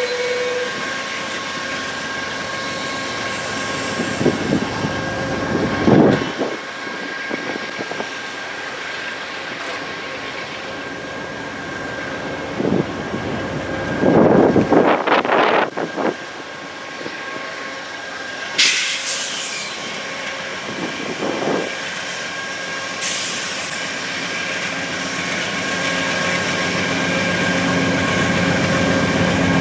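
Train rolling past on the track: steady rail-car rumble, with several short, louder noises along the way and the sound building toward the end.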